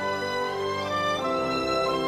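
Background music: a slow melody of long held notes, changing pitch every half second or so.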